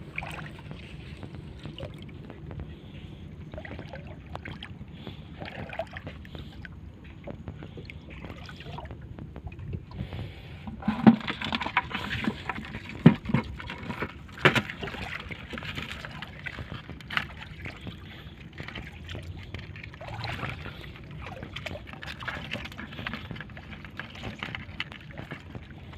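Water sloshing and lapping against a small boat, with a few sharp knocks around the middle.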